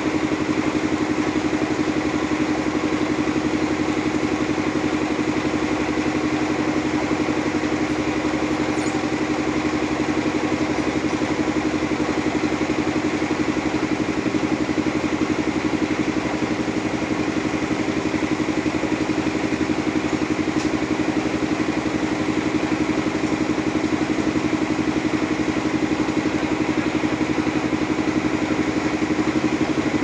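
Engine idling steadily, an even hum that holds the same speed throughout with no load or revving.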